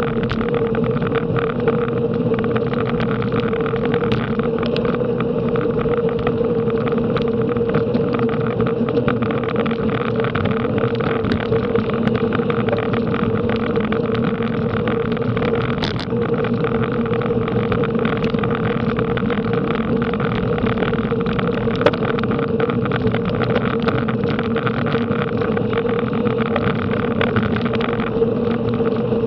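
Steady wind rush and road noise from moving at racing speed, with a constant mid-pitched hum underneath.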